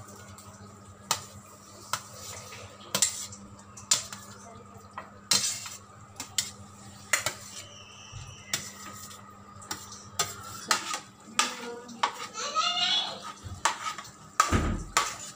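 Metal spoon clinking and scraping against plates and the rim of a kadhai as roasted vegetables are pushed into the pan a little at a time: irregular sharp clinks, with a louder thump about a second before the end.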